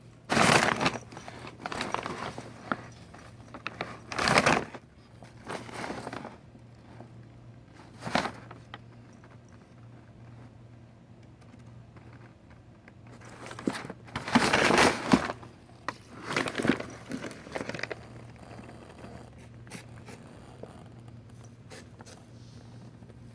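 Paper bags crinkling and rustling in irregular bursts as a cat moves about and scrabbles inside them, with some scraping, the loudest bursts about half a second in, about four seconds in, and a longer one about fourteen seconds in.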